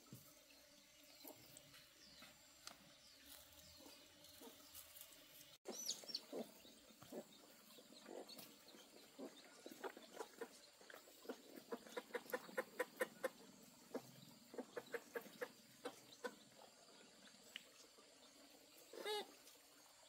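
Faint farmyard sounds: chickens clucking, with a run of quick light taps through the middle and a short call near the end.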